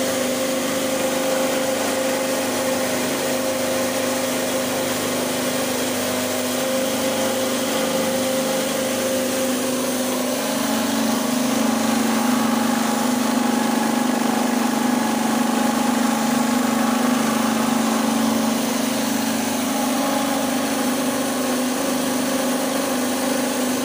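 Version 16 combined rice mill running under load, driven by its 3 HP electric motor: a steady mechanical hum over an even hiss as milled rice streams out of the outlet. The hum grows slightly louder about ten seconds in.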